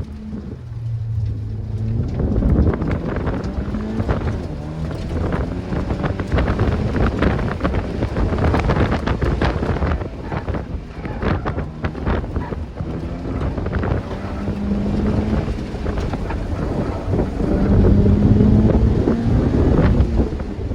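2013 Scion FR-S's 2.0-litre flat-four engine, fitted with a TRD exhaust, driven hard: its pitch climbs and drops again and again as the car accelerates and brakes, peaking near the end. Heavy wind buffeting on the microphone runs under it.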